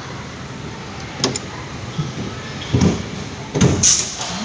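Roller coaster car starting off: a few mechanical clunks and knocks, then a short sharp hiss of air about four seconds in.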